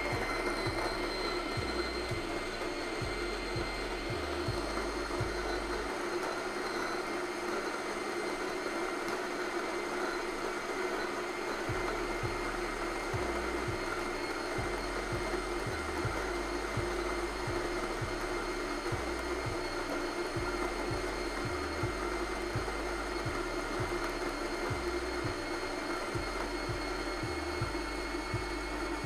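Fellow Opus conical burr grinder's motor running steadily as it grinds about 18 grams of coffee beans at a fine espresso setting, a steady whine over grinding noise. It shuts off on its own near the end.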